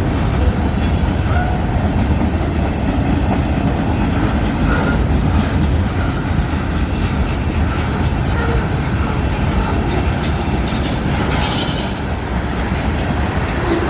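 Freight train cars rolling past: a steady, loud rumble of steel wheels on the rails, with sharper clicking over the rail joints in the last few seconds.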